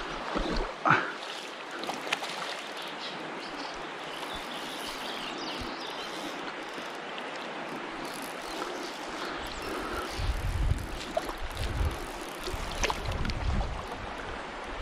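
Shallow river water running and rippling over a rocky bed, a steady rushing hiss. About ten seconds in, several low rumbles come and go for a few seconds.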